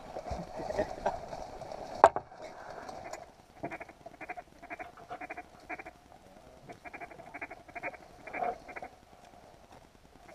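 A sharp click about two seconds in, then two strings of short duck quacks, about three a second, with a brief pause between them.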